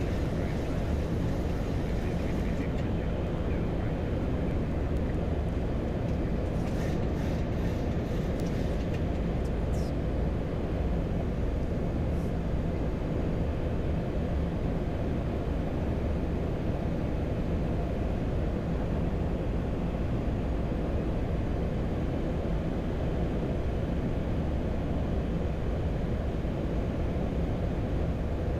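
Steady low rumble of airflow and engine noise inside a Boeing 737-800 cockpit on final approach, with the landing gear down and flaps at 15. A few faint ticks sound between about six and twelve seconds in.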